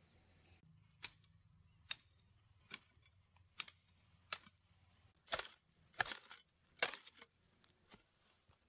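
A hand hoe chopping into grassy earth while a hole is dug: about nine sharp strikes, roughly one a second, the later ones louder.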